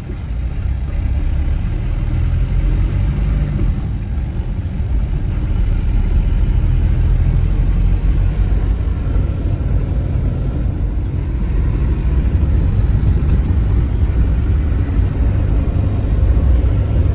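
Hindustan Contessa Classic with a diesel engine, driving along: a steady low rumble that grows a little louder about five seconds in.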